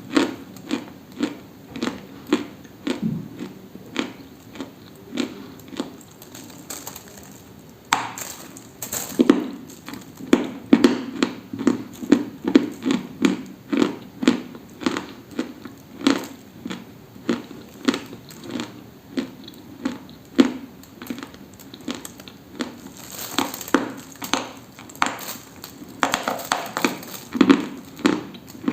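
Dry crunching, repeated over and over: short sharp crunches about one and a half a second at first, growing denser and louder from about a third of the way in.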